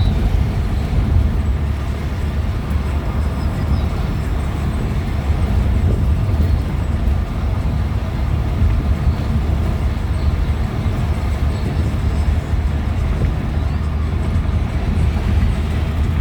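Steady low rumble of a moving car, heard from inside the cabin: road and engine noise while driving.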